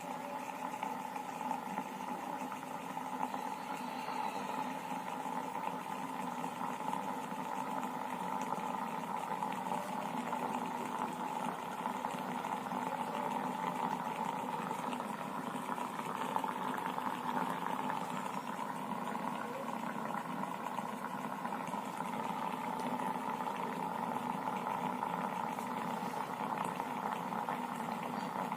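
Water heating in an electric steam vaporizer, a steady bubbling hiss of water coming to the boil that grows slowly louder.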